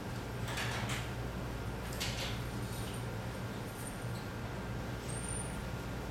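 Room tone: a steady low hum, with two brief noises, one about half a second in and one about two seconds in.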